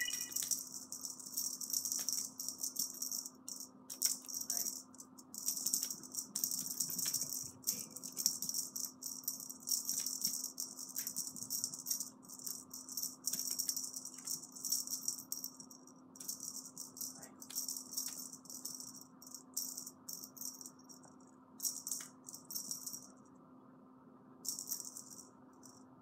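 Something small and hard being shaken, rattling in quick, irregular bouts, almost without a break for the first half, then in shorter spells with gaps.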